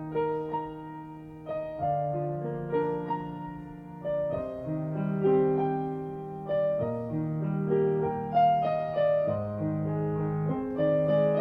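Solo piano playing the introduction to a choral song, notes struck one after another in broken chords and left to ring, before the choir comes in.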